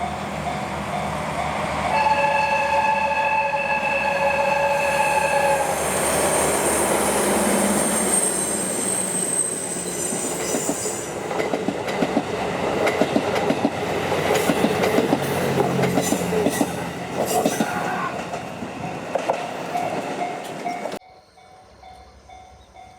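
A level-crossing warning bell dings steadily. About two seconds in, the horn of twin DE10 diesel locomotives sounds one chord for about four seconds. The train then passes, wheels clattering over the rail joints with a high wheel squeal. The passing noise cuts off suddenly near the end, leaving the crossing bell faintly.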